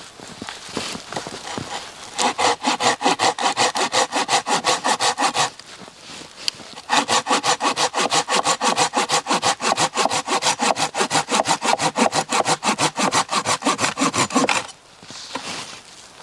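Hand saw cutting through wood with fast, even back-and-forth strokes, in two runs with a pause of about a second and a half between them.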